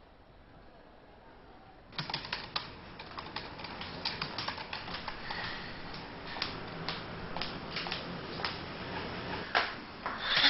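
Typing on a computer keyboard: quick, irregular key clicks that start about two seconds in.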